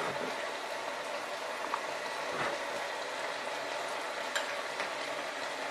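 Minced beef frying in a pan with a steady sizzle, with a couple of faint clicks about halfway through and near the end.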